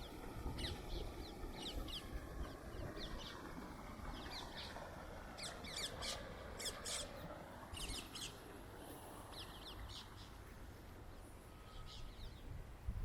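Small birds chirping and twittering in many short, quick calls, some in rapid runs, over a steady low rumble.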